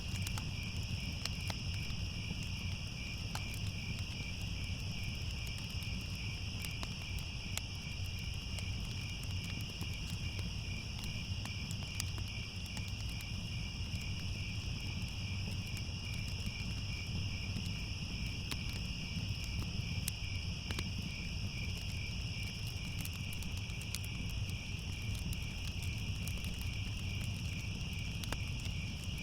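Crickets chirping in a steady, dense high trill, over a low steady rumble with scattered small crackles of a wood fire.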